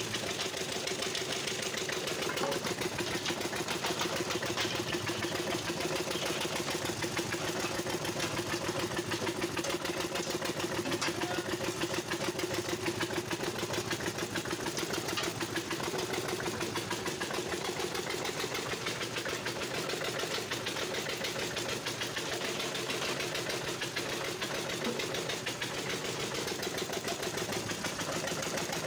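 A palm oil mill's stationary engine, the one that powers the pounding of the palm fruit, running steadily with a fast, even beat.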